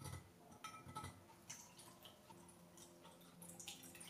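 Faint clinks of a stainless steel popsicle mold being handled, then juice being poured from a glass measuring jug into the metal mold, starting about halfway through.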